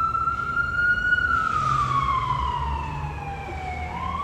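Emergency vehicle siren wailing: the pitch climbs slowly to a peak about a second in, falls slowly over about three seconds, and starts to climb again near the end, over a low rumble.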